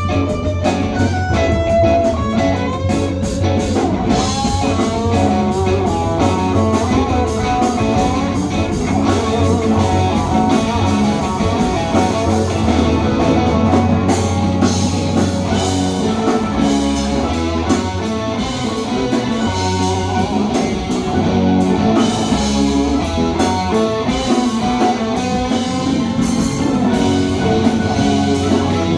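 Rock band playing live, with electric guitar over a steady bass line and a drum kit.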